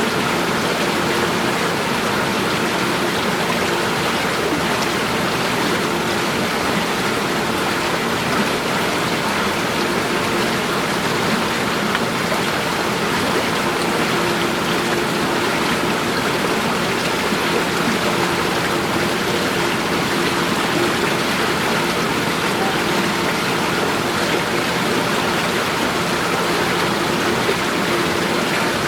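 Steady rush of flowing water, even and unbroken, with a faint low hum underneath.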